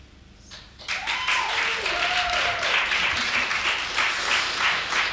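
Audience applauding: clapping breaks out about a second in after a quiet moment at the end of the song and carries on steadily.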